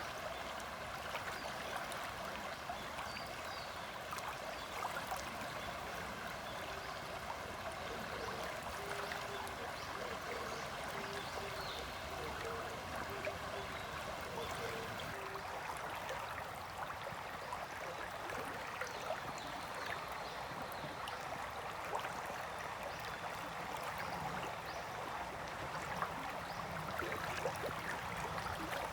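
The Isuzu River flowing: a steady, even rush and babble of stream water.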